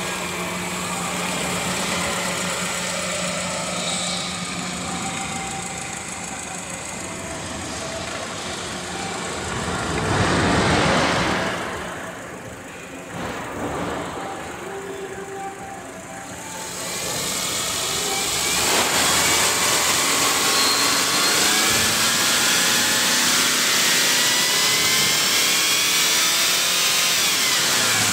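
Subaru EJ203 2.0-litre flat-four engine running in the car: idling steadily, with a brief surge in revs about ten seconds in. Over the last ten seconds the revs are raised and climb slowly, then fall away right at the end.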